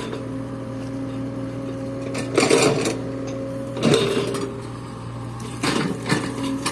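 Backhoe's diesel engine running steadily while it works, with three short bursts of crashing and scraping about two and a half, four and six seconds in.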